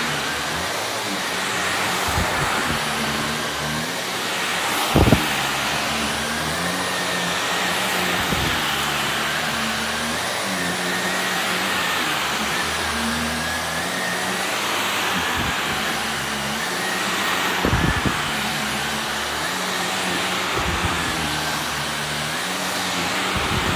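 Shark upright vacuum cleaner running over a rug, its motor tone rising and falling with each push and pull about every two seconds, over a steady high whine. A few sharp clicks cut in, the loudest about five seconds in and again near eighteen seconds.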